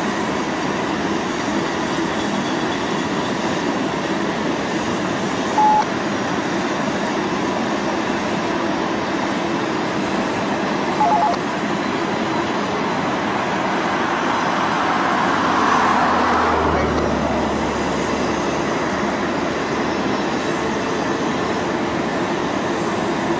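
A Canadian Pacific train rolling by, a steady rumble and clatter of the cars. There are two brief high tones, about six and eleven seconds in, and the sound swells louder around sixteen seconds.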